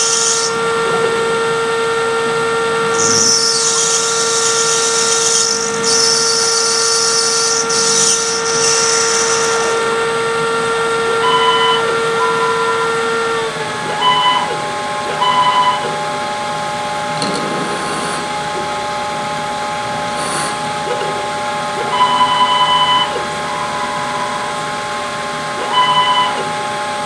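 Homemade CNC lathe machining brass: a steady spindle motor whine whose pitch drops about halfway through. There are bursts of hiss in the first ten seconds, and later several short, higher whines from the axis motors moving.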